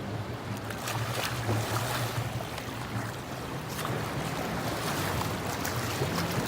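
Waves washing on the shore, with wind rumbling on the microphone.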